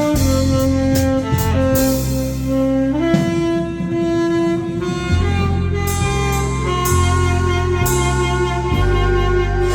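Instrumental backing of a Korean popular song: a lead instrument plays the melody in long held notes over a bass line and a drum kit with cymbal strikes.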